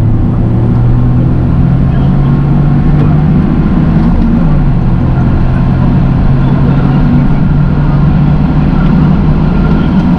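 Toyota GR Yaris's turbocharged three-cylinder engine pulling steadily while driving, with tyre and road noise beneath. The engine note holds nearly level, shifting pitch briefly about four and a half seconds in.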